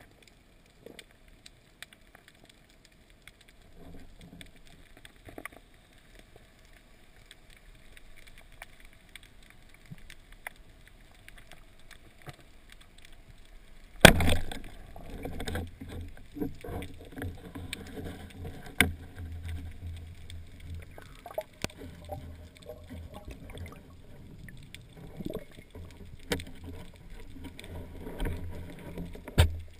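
Heard underwater: faint ticking and a low hiss, then about halfway through a rubber-band speargun fires with a single sharp crack. Irregular low thumps, knocks and scrapes follow as the speared fish struggles on the shaft and the gun is handled, with another sharp knock near the end.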